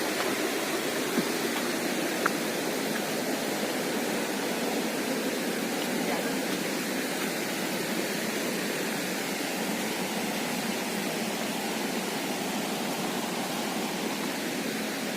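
Steady rush of water from a waterfall-fed stream, an even unbroken roar. Two faint ticks come in the first few seconds.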